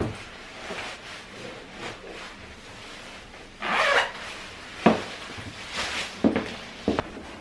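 Rubbing and rustling of clothing and a tall riding boot as it is pulled on, followed by a few short knocks of boot heels on a wooden floor.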